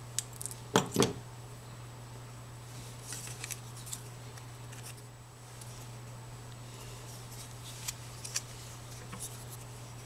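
Flush cutters snipping the unused legs off a small six-pin optocoupler chip: two sharp snips about a second in, then a few faint ticks as the parts are handled, over a steady low hum.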